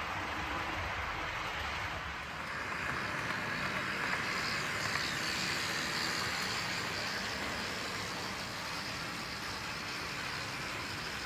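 OO gauge model diesel locomotive running along the layout's track, a steady hiss-like running noise that keeps up evenly throughout.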